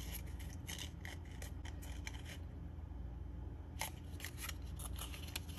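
Irregular faint crisp clicks and rustles of black cardstock being folded and pressed together by hand, over a low steady hum.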